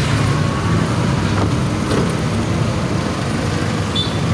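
Steady low rumble of road traffic, tyres and running gear on the road, with no sudden events; a brief high chirp sounds near the end.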